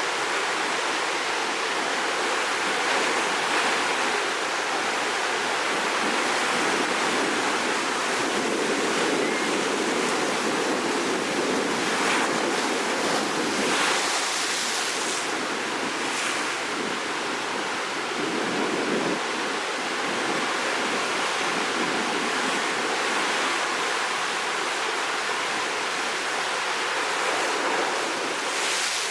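Rough sea surf breaking and washing against the shore in a continuous rush of water that swells and eases slightly.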